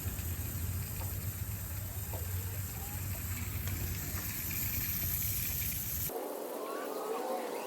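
Oats pouring steadily out of a barrel's bottom PVC valve into a 2-gallon bucket: a continuous grainy hiss over a low steady hum. The hum drops out about six seconds in.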